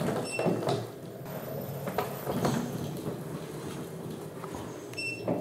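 Zendure Superbase V power station driving itself on its motorised wheels across a tile floor: wheels rolling, with irregular clicks and knocks.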